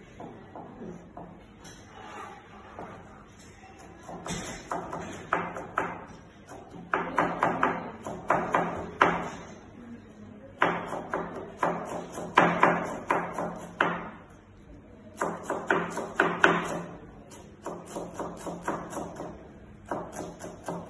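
Chef's knife chopping cabbage on a plastic cutting board: quick, even runs of knife strikes through the leaves onto the board, broken by short pauses.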